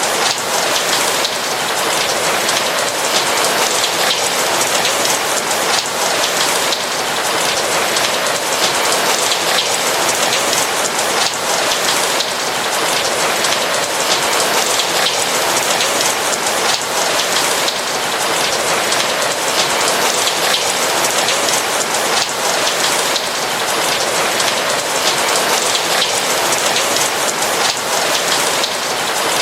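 Steady rain, a dense, even patter of raindrops that keeps up without let-up.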